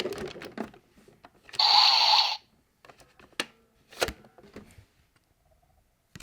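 Clicks and clacks of a CSM Decadriver toy belt being handled as a card is loaded, with one short electronic sound effect from the belt's speaker about one and a half seconds in.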